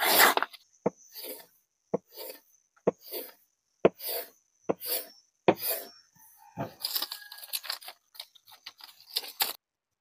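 Freshly restored steel knife slicing through paper in a sharpness test: a run of quick cuts, about one a second, each a sharp tap followed by a papery swish, with a quicker burst of cutting about two-thirds of the way in.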